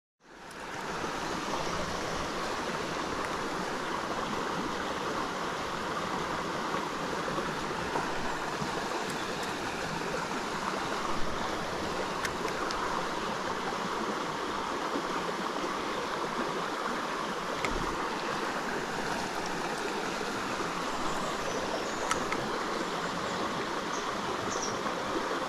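Stream water running in a steady, even rush, fading in over the first second.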